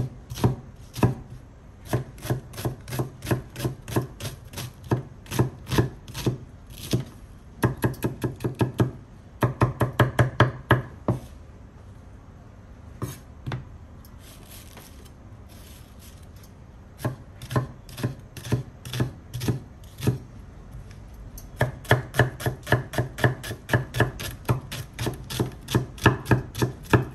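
Kitchen knife slicing an onion on a cutting board: a long run of quick, even strokes, about three to six a second. The strokes stop for several seconds about halfway through, apart from two, then start again and run on.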